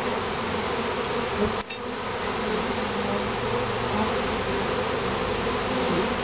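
Many honey bees buzzing around an opened top bar hive, a steady, even drone.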